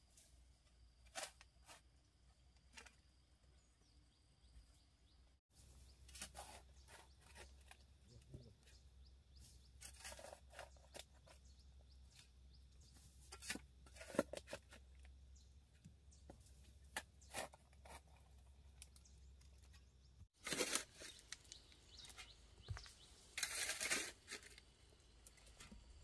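Faint, scattered crunching and scraping strokes, coming in short clusters with gaps between them.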